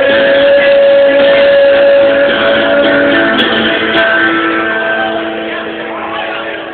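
Karaoke backing music with guitar. It holds one long note for about the first three seconds, then fades down toward the end as the song closes. The recording sounds poor and dull.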